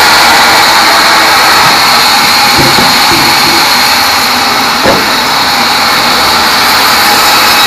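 Large sawmill bandsaw running loud and steady with a high-pitched whine, its blade ripping a small teak log into boards. A few wooden knocks, the sharpest about five seconds in, as the cut slab is handled.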